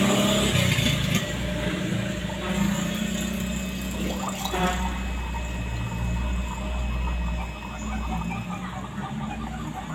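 A man gargling betel-leaf water in his throat, a continuous wet, rapid bubbling, as a home remedy to loosen and bring up phlegm from a cough. A steady low hum runs underneath.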